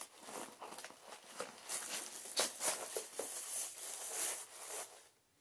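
Packaging rustling and crinkling with small irregular taps as a book is taken out of its wrapping by hand; it stops about five seconds in.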